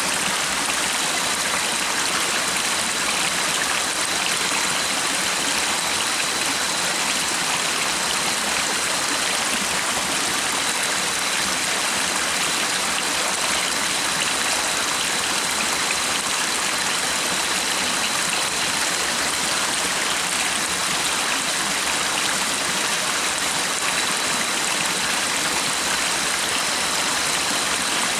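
A stream flowing steadily: an even rush of running water, with a faint, thin, high steady tone through it.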